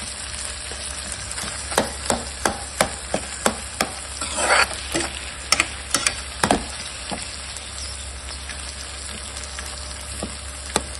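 Chopped tomatoes, onions and chillies sizzling in oil in a pan, with a metal spatula clicking and scraping against the pan as they are stirred. The clicks come thick and fast for about the first seven seconds, then mostly just the steady sizzle remains.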